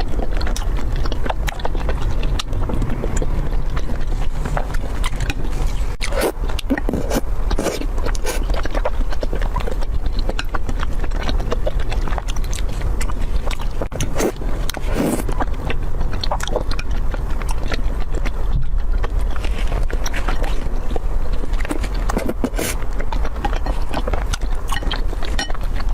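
Close-miked chewing and biting of food, a dense run of irregular small clicks and smacks, over a steady low hum.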